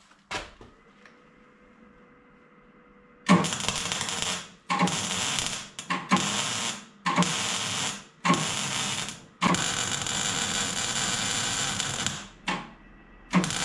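Arc welding on sheet steel: after a faint steady hum, the arc is struck again and again, about a second of crackling each time, then one longer run of about two and a half seconds and a few shorter bursts, like stitch or tack welding.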